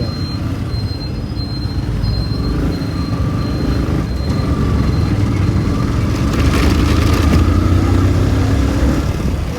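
Motorcycle engine running while riding, its note climbing slowly as it accelerates over several seconds, over a steady low road and wind rumble.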